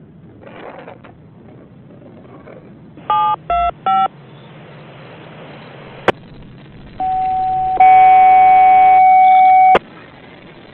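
Railroad radio heard through a scanner: three short touch-tone (DTMF) beeps, then radio hiss. A steady beep follows, turns louder and buzzier for about two seconds, and cuts off with a click.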